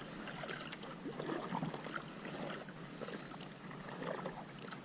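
Kayak paddle working the water, with light splashes and water trickling and dripping off the blade.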